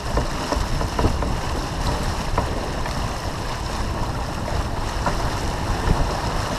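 Wind buffeting the microphone and water rushing along the hull of a sailing yacht heeled over under sail, with a few sharp slaps or knocks.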